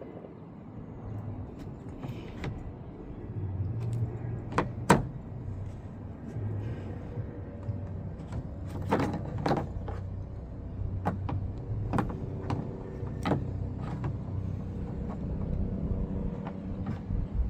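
Plastic bracket being slid and rotated on and off the rim of a poly stock tank: a series of sharp clicks and knocks, one loudest about five seconds in and several more in quick succession in the middle, over a steady low hum.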